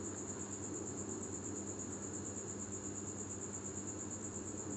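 A steady, high-pitched pulsing trill over a faint low hum, with no separate clatter or knocks.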